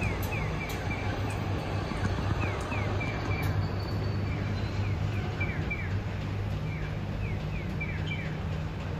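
Road traffic ambience with a steady low engine hum, over which short, falling high chirps sound again and again in twos and threes.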